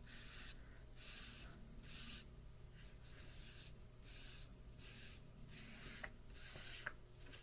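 Fingertip rubbing soft chalk pastel into paper to blend it: a faint, soft scratchy rubbing in repeated strokes, about two a second.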